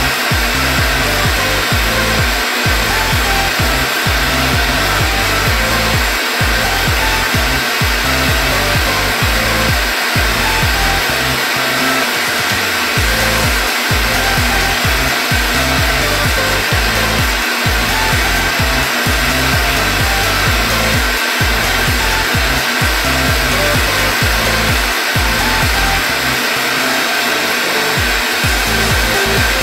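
Two gas blowtorches hissing steadily into a frying pan, with a knife blade rubbing and scraping melting slime across the hot pan.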